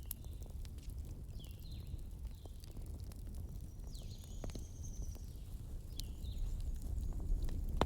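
Wood fire crackling: irregular sharp pops and snaps over a low steady rumble, with one loud pop at the very end. Short high chirps that drop in pitch come through several times.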